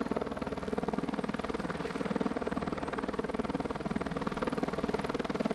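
Helicopter hovering low overhead with a cow slung beneath it on a longline, its rotor beating in a rapid, steady pulse.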